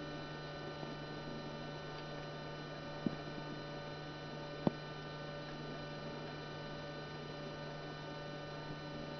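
Steady electrical hum, a low drone with thin whining overtones, over a faint hiss, broken by two short clicks about three seconds and four and a half seconds in.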